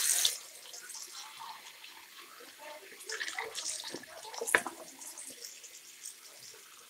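Tap water running into a glass jar as a hand rubs and rinses it out. The water is loud at the very start, then runs quieter with uneven splashing and a light knock about halfway through.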